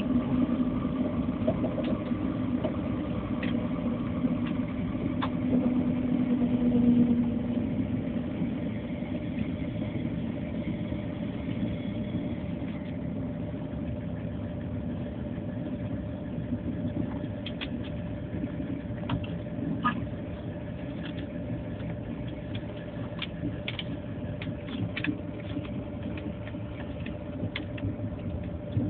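Inside a moving train carriage: a steady running rumble with a constant hum, plus a lower hum for roughly the first seven seconds. Scattered faint clicks and ticks come in the second half.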